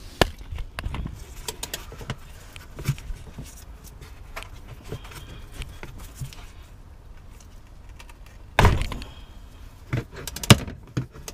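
Clinks and knocks of a 24 mm hex bit and wrench working at a car's gearbox refill plug to loosen it, with a louder clunk about three-quarters of the way through and a few sharp clicks after it.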